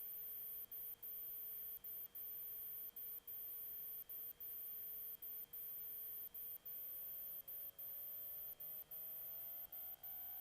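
Faint engine note of a Sting light-sport airplane, heard through the cockpit intercom. It holds steady, then rises in pitch about six seconds in as power comes up for the takeoff. Over it runs a thin, very high electrical whine that cuts out briefly over and over.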